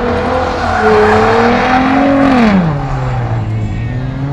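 A car doing a burnout: the engine revs up and holds high while the tyres spin and screech, then the revs drop away about two and a half seconds in.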